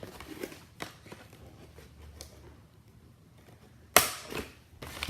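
Plastic clicks and knocks from handling a freshly unboxed Nerf toy blaster and its packaging, with one sharp clack about four seconds in and a few lighter knocks after it.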